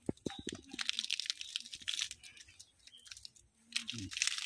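Fresh green leaves crackling and tearing as they are folded and pushed by hand into the open end of a green bamboo tube. Quick crackles come thickest in the first two seconds, then thin out.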